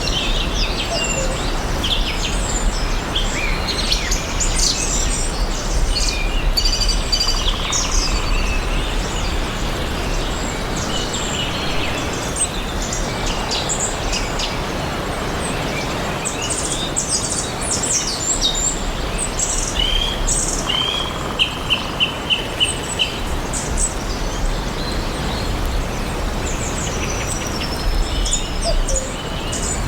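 Several songbirds chirping and calling over a steady background hiss. A little over two-thirds of the way in, one bird gives a quick run of about six notes.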